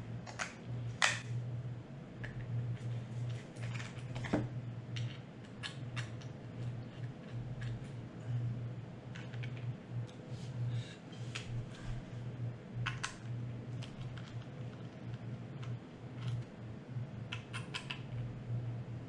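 Light, irregular clicks and taps of a precision Torx screwdriver and small screws on a RED Epic camera's metal chassis as it is taken apart, over a steady low hum.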